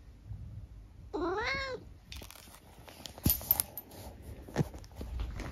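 Long-haired tabby cat gives one short meow, rising then falling in pitch, about a second in. Rustling and several sharp knocks follow, the loudest a pair about a third of a second apart near the middle.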